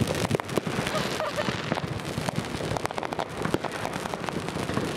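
New Year's Eve fireworks going off: a dense, irregular crackle of sharp bangs and pops in quick succession, with no pause.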